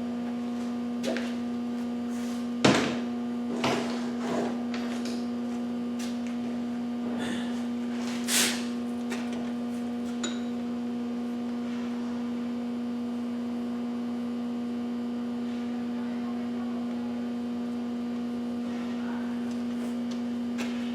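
Steady electrical hum of machine-shop equipment, with a few clunks as metal parts are handled (the loudest about three seconds in) and a short hiss about eight seconds in.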